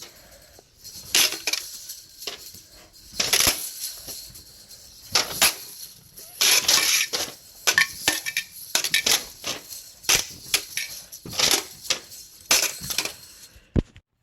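A slinky's coils clattering and jingling in repeated irregular bursts as it is swung and slapped about, stopping just before the end.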